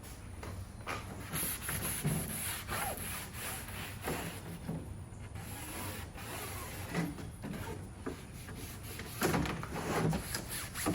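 Irregular rubbing and scraping strokes from handling and wiping an empty window screen frame.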